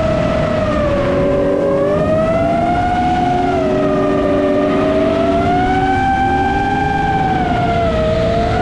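FPV drone's electric motors and propellers whining, several tones rising and falling together as the throttle changes.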